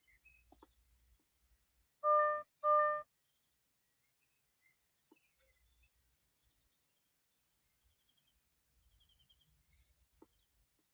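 Two short electronic beeps of one steady tone, about half a second apart, a couple of seconds in. Faint high chirps recur every few seconds.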